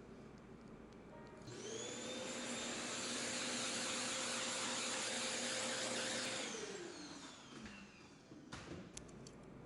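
A small high-speed electric air-moving motor, such as a handheld vacuum or electric duster, spins up about a second and a half in with a rising whine and a rush of air. It runs steadily for about five seconds, then winds down with a falling whine. A few clicks follow near the end.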